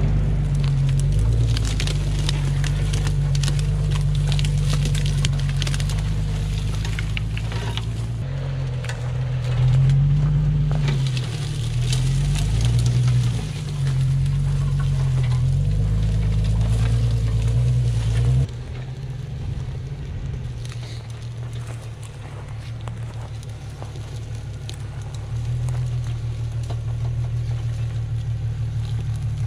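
Toyota FJ Cruiser's 4.0-litre V6 engine revving up and down as the SUV forces its way through dense brush, with branches crackling and scraping against the body. About two-thirds of the way through the sound suddenly drops quieter and the engine runs on more steadily.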